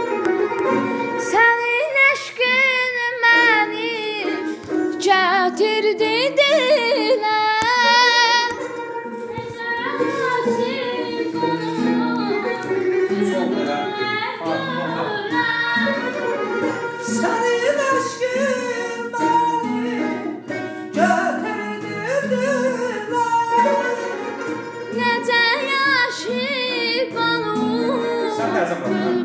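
Azerbaijani təsnif in the Dashti mugham mode: a voice sings ornamented melodic lines with quick wavering trills, over instrumental accompaniment.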